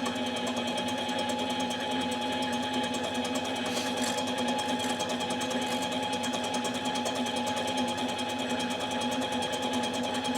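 Machine tool running steadily while a chainsaw cylinder is machined, a constant motor hum with a fine, fast, even pulse and no pauses.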